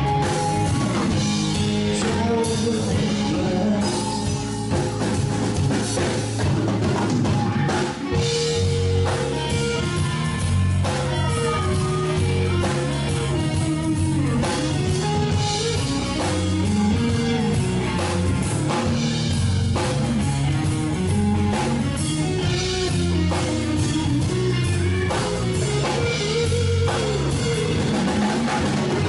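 A blues-rock band playing live: electric guitar over bass guitar and a drum kit keeping a steady beat.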